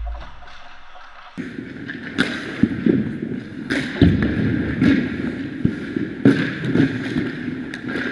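Ice rink warmup: hockey skates scraping the ice, with sharp knocks of pucks striking sticks and boards at irregular intervals, about one a second. It starts about a second and a half in.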